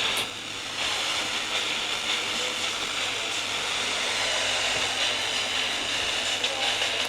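Steady hiss of radio static with a constant low hum underneath, heard on a weather-radio alert broadcast between spoken lines. The hiss dips briefly just after the start.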